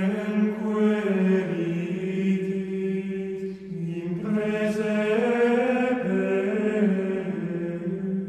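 Low voices chanting in unison, holding long notes that move slowly between a few neighbouring pitches, with a brief breath between phrases a little past the middle.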